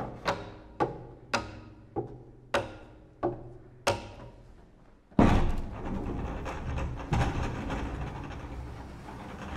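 Double bass struck in sharp percussive strokes, seven in about four seconds, each ringing briefly. About five seconds in comes a loud thud, followed by a steady, rough rumbling noise.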